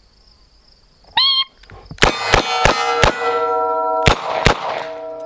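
A short electronic beep, then six shots from an RIA Model 206 .38 Special snub-nose revolver: four about a third of a second apart, then a quick pair about a second later. Steel IPSC targets ring after the hits and keep ringing to the end.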